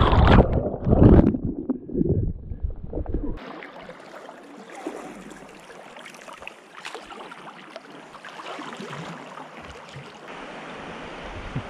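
Capsized kayak, heard from underwater: loud, muffled churning and bubbling of river water. About three and a half seconds in, the microphone breaks the surface and the sound suddenly opens up into the steady rush of flowing river water with light paddle splashes.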